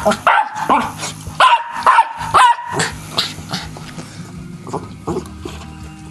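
Small terrier-type dog barking at a spinning handheld toy fan: a quick run of about six loud, sharp barks in the first two and a half seconds, then quieter, sparser barks tapering off.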